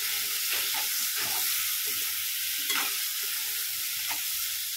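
Sliced shernya pieces sizzling in hot oil in a kadhai while being stirred, the spatula scraping the pan a few times at uneven intervals over a steady sizzle.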